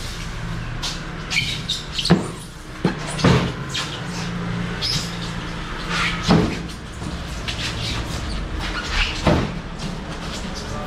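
Car being driven: a steady engine and road drone with a few short, sharp knocks over it.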